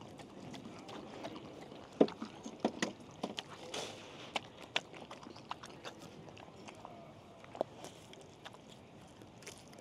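Golden retriever eating soft wet food from a stainless steel bowl: irregular wet smacks of licking and chewing with sharp clicks against the metal, thinning out near the end.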